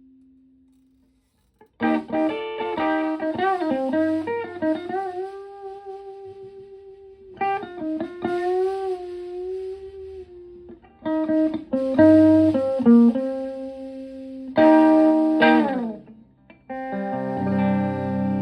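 Stratocaster electric guitar through a Höfner 'The Höf' preamp into a clean Fender Twin Reverb–style amp, playing single-note lead phrases with string bends and vibrato, broken by a few chord stabs. A quick slide down comes near the end, and then a chord is left ringing.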